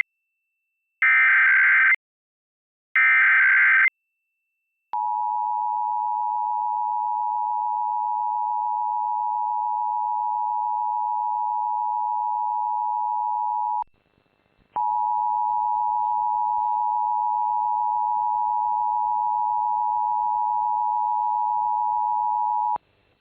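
Emergency Alert System tones: the last two of three SAME header data bursts, each about a second long with a second's gap between, then the steady two-tone EAS attention signal. The attention signal runs about nine seconds, cuts off, and starts again under a second later for about eight more seconds over a faint hiss, as the next station's relay of the test begins.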